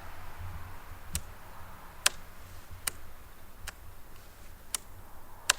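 A series of six sharp, short clicks, a little under a second apart, over low steady background noise.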